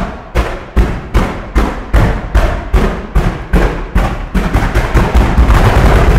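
Daytime fireworks: a chain of loud firecracker bangs at about two and a half a second, speeding up over the last second or two into a dense, almost continuous volley.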